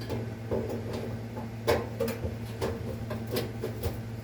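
Scattered clicks and knocks from handling a Kenmore dryer's heating element assembly as it is fitted back into the dryer, about seven taps with the sharpest a little under two seconds in.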